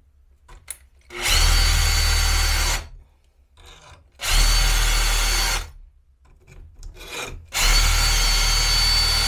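Cordless drill spinning a 5.2 mm round chainsaw file against a saw-chain tooth in three short runs of about a second and a half each: a steady motor whine over a grinding rasp. The fresh file is biting into the tooth and sharpening it.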